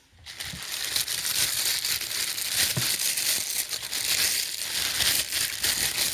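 Thin plastic packaging bag being crumpled and handled, a continuous crinkling with fine crackles.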